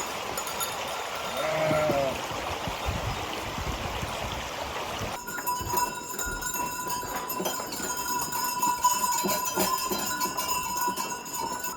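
A steady rushing like running water, then, from about five seconds in, many small sheep bells clinking and ringing continuously from a flock moving about.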